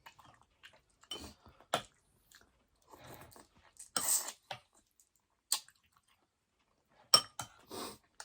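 Close-miked chewing and wet mouth sounds of someone eating rice porridge, in short irregular bursts broken by a few sharp clicks.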